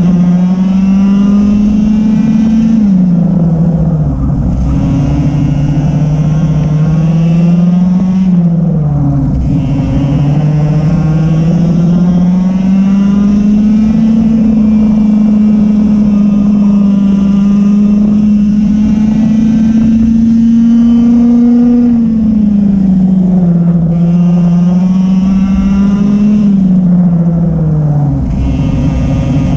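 Racing kart's engine at full throttle on a practice lap, its pitch climbing and holding high on the straights and dropping sharply each time the driver lifts for a corner: four drops, about three seconds in, about eight seconds in, around twenty-two seconds in and near the end, with the longest high, steady stretch in the middle.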